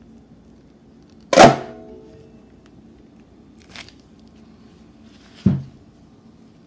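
Cutting a loaf of cold-process soap into bars: a loud sharp clank about a second and a half in with a brief metallic ring, a faint click, then a second, softer clank near the end.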